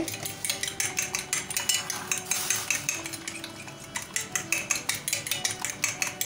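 A metal fork beating a raw egg in a glass plate: quick, rhythmic clicks of metal against glass, about four to five a second.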